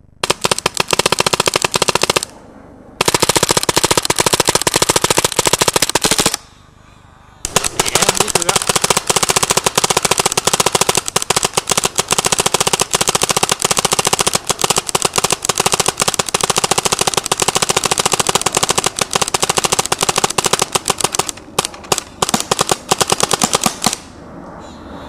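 Racegun Halfblock Autococker paintball marker firing very fast, in long unbroken strings of shots. It stops twice for about a second in the first eight seconds, and near the end breaks into a few separate shots.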